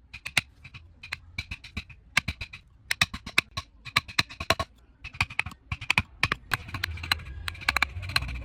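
Rapid, irregular clicking and tapping in quick clusters, with a low hum coming up near the end.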